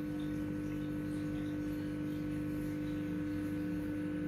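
Steady electrical hum made of a few fixed tones, with no other sound rising above it.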